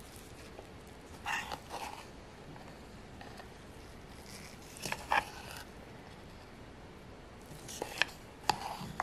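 Metal spoon scraping and clicking against a plastic food-chopper bowl while scooping out thick chocolate-hazelnut spread, in three short bouts: about a second in, near the middle, and near the end.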